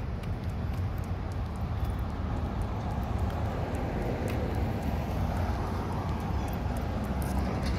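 Street traffic going by: a steady low rumble of tyres and engines that swells as vehicles pass, with the light tapping of footsteps on a concrete sidewalk.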